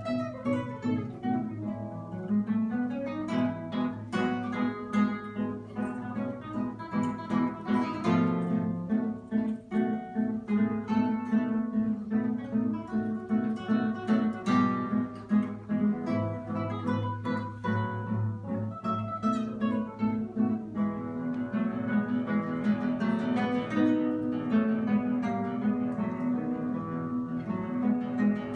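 Two classical guitars playing a duet: a continuous stream of quick plucked notes.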